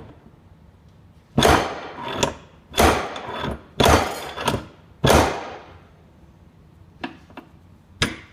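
Antique slide-hammer nail puller: its sliding ram is slammed down four times, about a second apart, in heavy metal strikes that drive the jaws under the head of a flush nail. A couple of light clicks follow near the end.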